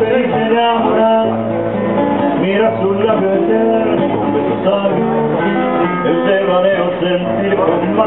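Acoustic guitar music: a run of plucked notes with some strummed chords, playing continuously.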